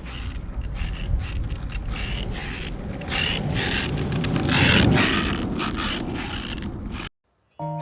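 Surfskate wheels rolling on pavement with a steady rumble, broken by repeated scraping squeaks from the truck as the board is pumped: the squeaking that the truck's pivot needs fixing for.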